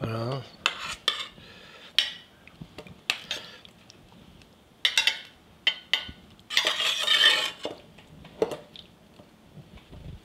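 Metal serving spoon clinking and scraping in a stainless steel saucepan and against a china platter as chicken, yam and sauce are spooned out: a string of separate sharp clinks, with a longer scrape about two-thirds of the way through.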